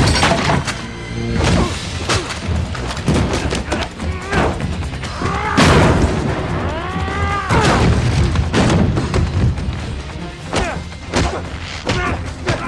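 Action-film fight soundtrack: dramatic score under a rapid series of punches, heavy thuds and crashes as bodies are slammed into cargo crates, with several pitched cries that rise and fall in pitch.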